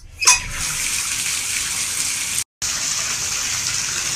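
Bathtub tap running into the tub, a steady hiss of water starting suddenly about a quarter second in, as a freshly unclogged tub drain is tested. The sound cuts out for an instant about halfway through.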